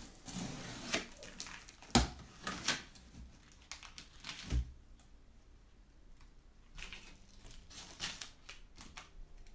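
Box cutter slicing packing tape along a cardboard shipping carton, with scraping and crinkling of tape and cardboard and two sharp knocks on the box about two and four and a half seconds in.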